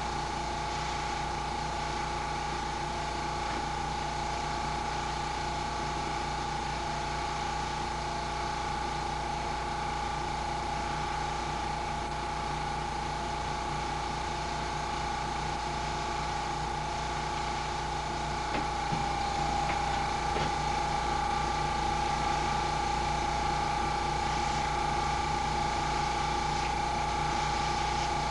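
Small airbrush compressor running with a steady motor hum, a little louder about two-thirds of the way in.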